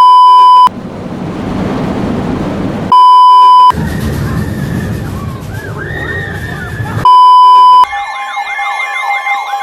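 Sirens cut together with a high, pure beep tone of about three-quarters of a second that sounds three times. After the first beep comes a loud rushing noise, then more noise with faint siren wails rising and falling. After the last beep an electronic siren cycles up and down quickly, about two and a half times a second, over a steady tone.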